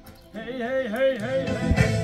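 Background music coming in about a third of a second in: a wavering melody line with vibrato over sustained chords, growing louder as a beat joins near the end.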